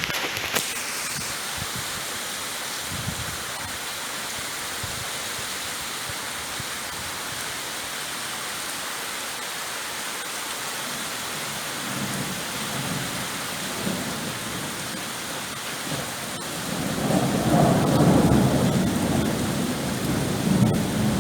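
Steady rain hissing, with thunder rumbling in about halfway through and building to a loud, long rumble near the end.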